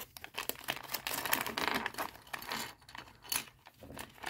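Plastic foil LEGO minifigure blind bag crinkling and crackling irregularly as hands handle it and pull the parts out.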